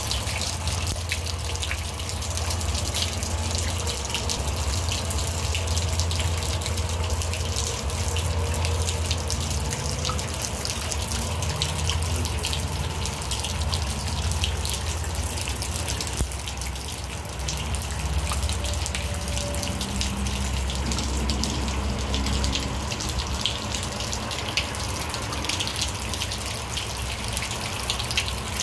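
Steady rain falling, a constant hiss thick with small pattering drips, over a steady low rumble.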